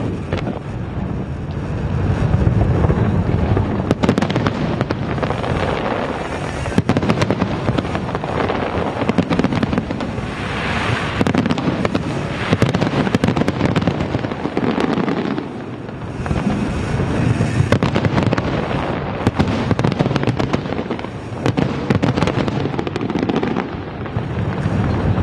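A large aerial fireworks display: continuous crackling and popping shells bursting overhead, with frequent sharp bangs throughout.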